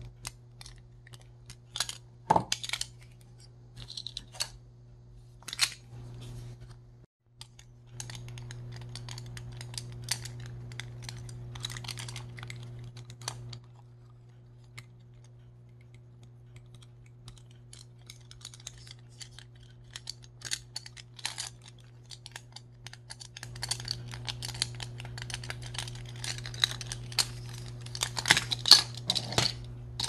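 Scattered sharp clicks and light taps from small hard objects being handled, over a steady low hum. The hum cuts out for a moment about seven seconds in and is louder in the last third, where the clicks come thickest.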